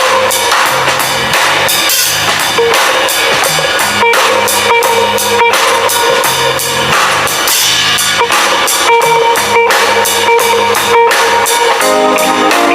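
Background music with a steady drum-kit beat and guitar, changing to a different section near the end.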